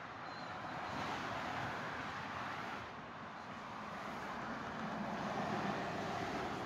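Motorway traffic passing below: steady tyre and engine noise from cars and lorries. It swells about a second in and again near the end as vehicles pass, with no horn sounded.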